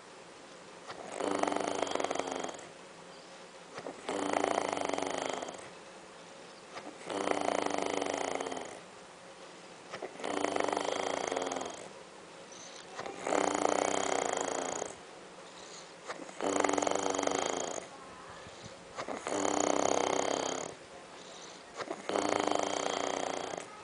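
A man snoring, one snore about every three seconds, eight in a row, each lasting about a second and a half.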